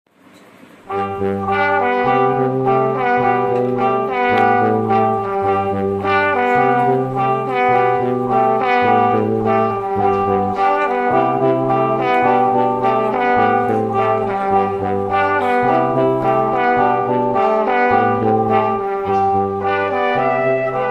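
Instrumental background music with held notes over a repeating bass line, starting about a second in.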